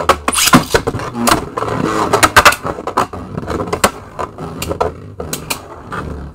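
Beyblade Burst spinning tops Helios Volcano and Dynamite Belial spinning in a plastic stadium, clacking and scraping against each other and the stadium in a rapid run of sharp hits. The hits come thick for the first three or four seconds, then thin out to a few scattered clicks.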